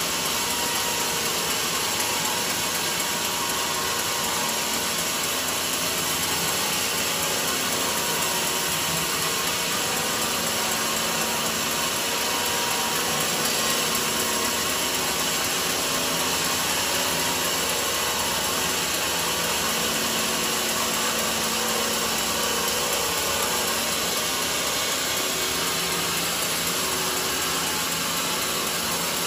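Band sawmill ripping lengthwise through a large mahogany log, the blade cutting steadily as the log is fed through on its carriage. An even, unbroken machine noise with no pauses.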